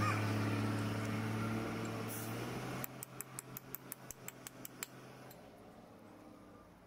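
A steady low machine hum fades and drops out about three seconds in. Then comes a quick run of about a dozen sharp clicks, around six a second, lasting two seconds.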